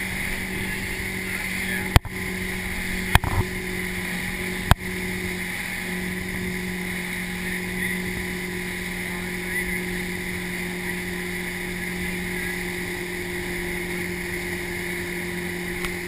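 Motorboat engine running at a steady speed while towing a water-skier, a constant low hum over the hiss of rushing water and wake spray. Three sharp taps, the loudest sounds, come in the first five seconds.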